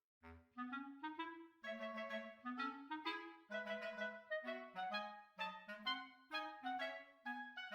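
Background music: a light, bouncy tune of short, detached notes in a woodwind-like (clarinet) voice.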